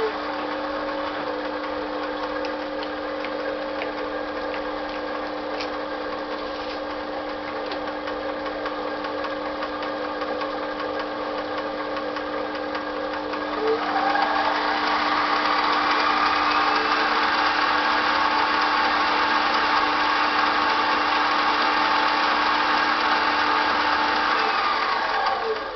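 Sieg C3 mini lathe running under its variable-speed motor, a steady whine from the motor and gears. About halfway through the speed is turned up, the whine rising in pitch and getting louder, and near the end it is switched off and runs down.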